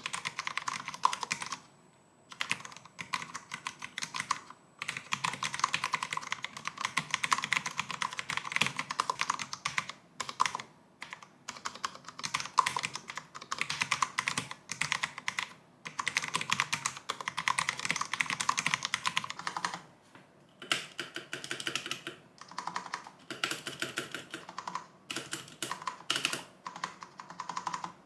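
Fast typing on a Cherry MX Board 10.0 low-profile keyboard with Cherry MX Low Profile Red linear switches and slim ABS keycaps: quick runs of light key clacks in bursts of a few seconds, with short pauses between. The bursts get shorter and choppier in the last third.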